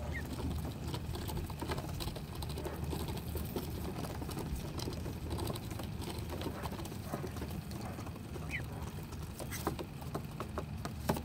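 Mallard ducklings and an adult mallard pecking birdseed off wooden dock boards: a rapid, irregular tapping of bills on the wood. A short rising duckling peep comes once near the start and again late on.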